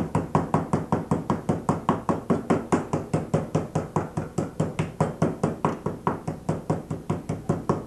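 A raw chicken breast under plastic wrap being pounded flat on a wooden cutting board: rapid, steady thumps at about five blows a second.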